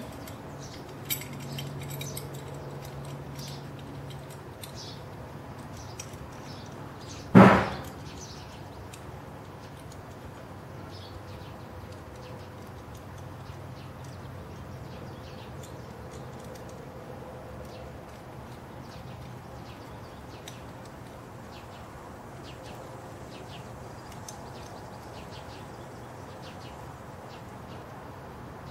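Faint clicks and ticks of the steel U-bolts, nuts and bracket plate being handled as the nuts are run down by hand, over a steady background hiss, with one loud knock about seven seconds in.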